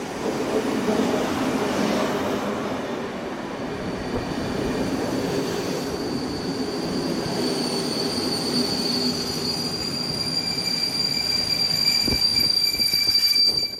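PKP Intercity EU07 electric locomotive and its passenger coaches rolling past on the station track with a steady rumble of wheels. About eight seconds in, a steady high-pitched squeal sets in and grows louder.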